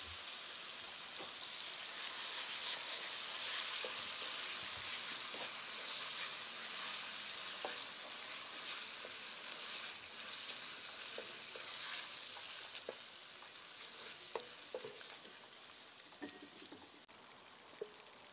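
Minced garlic sizzling in hot oil in a stainless steel pot, stirred with a wooden spatula that gives occasional light knocks. The sizzle slowly dies down over the last few seconds.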